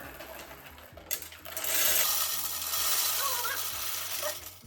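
Whole coffee beans poured into the bean hopper of a Ninja Luxe Café espresso machine. A few clicks, then a steady rush of beans from about a second in that stops near the end.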